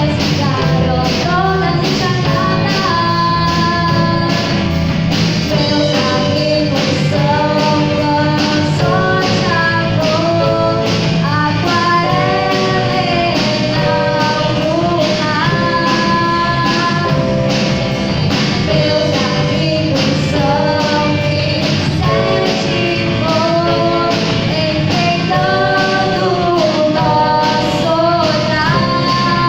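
A band playing a song: a singing voice carrying the melody over guitar and a steady drum beat.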